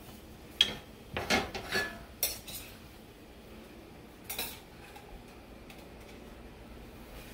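Stainless steel skillet and a utensil clattering: a run of clinks and scrapes in the first two and a half seconds, and one more clink a little over four seconds in.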